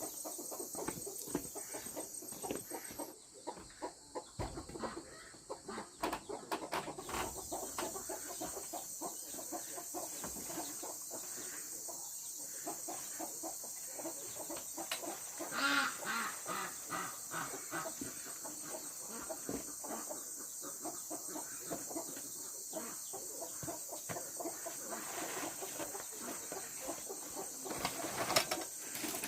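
Chickens clucking, mixed with many short clicks and knocks.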